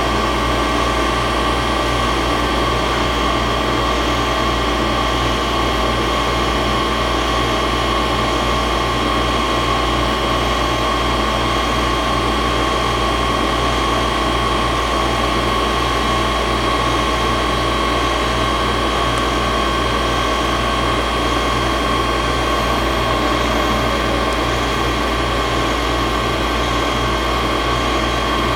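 A 5-axis CNC milling machine running: a steady machine hum with a constant high whine, unbroken throughout.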